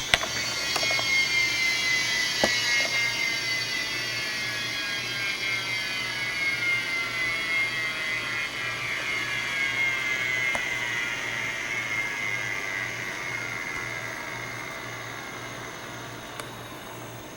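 A computer powering down: several high whining tones slide slowly down in pitch together and gradually fade, with a few faint clicks along the way.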